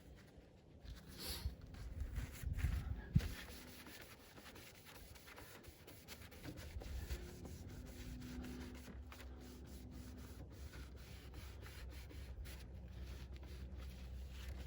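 A cloth rubbing and wiping across a plastic headlight lens to dry it after cleaning, with a single sharp knock about three seconds in.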